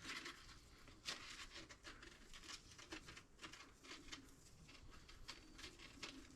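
Faint rustling and scraping of baler twine being handled and pulled into a knot: a run of soft, irregular strokes.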